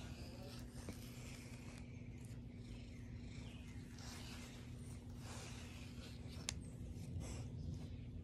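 Soft, scratchy grooming strokes through a dog's thick, matted coat, repeating every second or so, with one sharp click about two-thirds of the way through. A steady low hum runs underneath.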